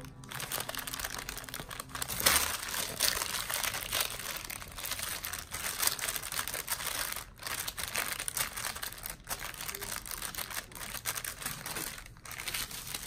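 Thin white paper crinkling and rustling as a hand crumples, folds and opens it around a sublimated dog-tag pendant, with a louder crackle about two seconds in.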